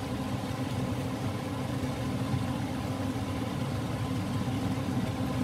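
Steady low mechanical hum with faint steady tones, running without change.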